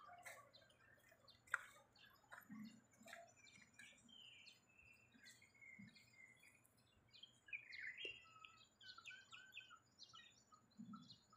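Faint, scattered chirps and short calls of several small birds, with a faint steady high whine in the background. A single sharp click about a second and a half in is the loudest sound.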